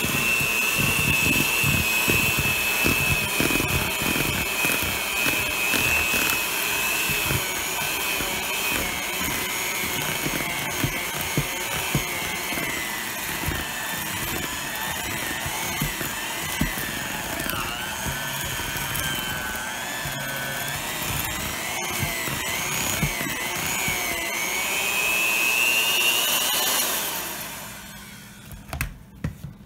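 Black+Decker electric hand mixer running at a steady whine as its beaters churn cake batter in a bowl, with a light clatter of the beaters throughout. The pitch wavers and dips for a few seconds past the middle, rises again, then the motor winds down and stops near the end, followed by a few light knocks.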